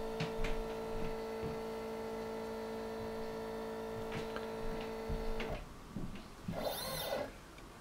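Stepper motors of a Zen Toolworks 7x12 CNC machine under a TinyG controller whine steadily as the axis creeps at a slow 21 mm/min feed, then stop about five and a half seconds in. About a second later comes a short whine that rises and falls as the axis moves quickly back.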